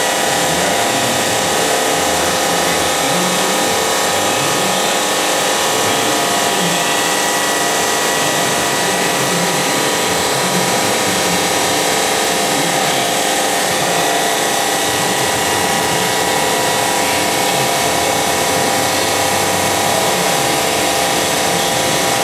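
Water-cooled diamond saw blade on a stone bridge saw cutting a mitre through a 3 cm Dekton slab, feeding at 1.8 m/min. A steady, loud cutting whine with several held tones over an even wash of noise.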